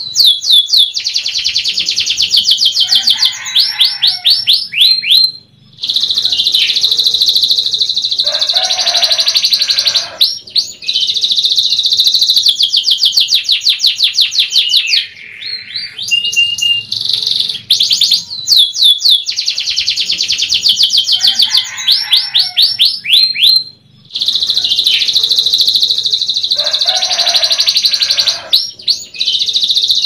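A young domestic canary singing long, rapid trills and rolling chirped phrases, high-pitched and loud, broken by brief pauses about five seconds in and again near twenty-four seconds. The same passage of song repeats from about eighteen seconds in.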